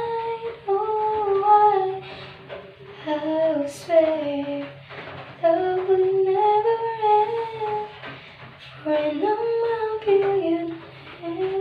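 A woman singing a pop song melody in phrases of a second or two, with short breaks between lines.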